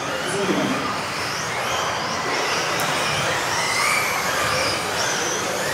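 Several electric RC off-road cars racing together: the high-pitched whine of their motors rises and falls in overlapping glides as they accelerate and brake, over a steady rushing noise.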